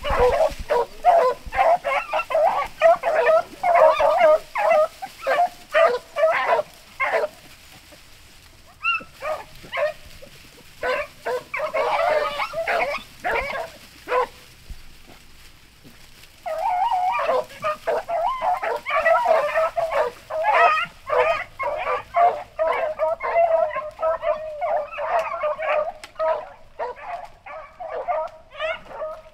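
Beagles baying in quick, overlapping yelps while trailing a rabbit by scent. The baying thins out twice, then runs steadily through the second half.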